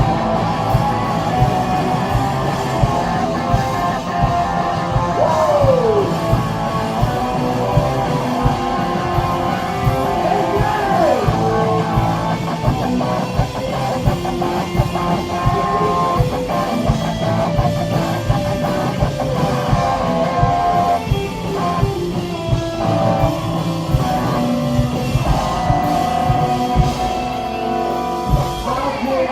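A live heavy rock band playing loud: electric guitars over a drum kit, dense and continuous. Two falling slides in pitch come about five and ten seconds in.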